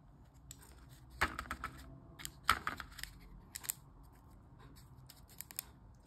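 Potting soil being sprinkled and pressed into a thin plastic cup: soft rustling with a few short, sharper crackles of soil and plastic, about a second in, two and a half seconds in, and again near the end.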